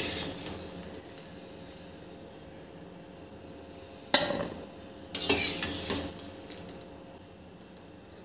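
Steel slotted skimmer knocking and scraping in a steel pot of water while scooping out blanched cauliflower florets: a clatter at the start, a sharp knock about four seconds in, then about a second of clattering.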